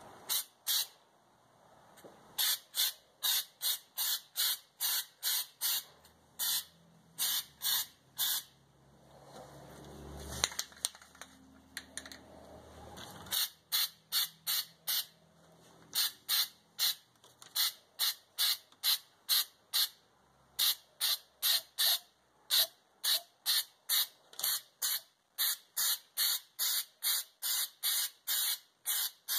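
Aerosol can of spray-in bed liner sprayed onto a car's trunk floor in quick short blasts of hiss, about two a second, with a break of a few seconds in the middle.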